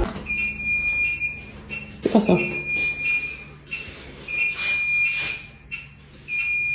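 Electronic alarm beeping: a high, steady tone about a second long, repeating four times about two seconds apart. About two seconds in, a short sound drops steeply in pitch across the beeping.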